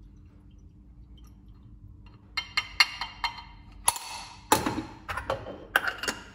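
Aluminium parts of a Bialetti moka pot clinking and knocking as it is taken apart and its pieces set down on the countertop. A quick, irregular run of sharp, ringing metal clicks starts about two seconds in, with the loudest knocks near the middle.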